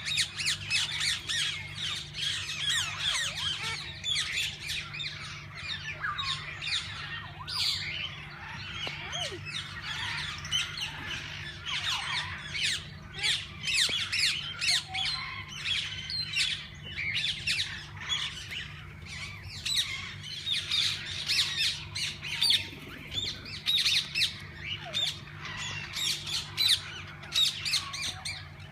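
A flock of parakeets squawking and chattering all at once, a dense stream of short, shrill calls from many birds, with a faint steady low hum underneath.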